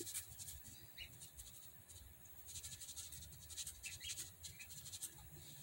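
Faint shaking and light ticking of a plastic garlic powder shaker as powder is sprinkled out of it.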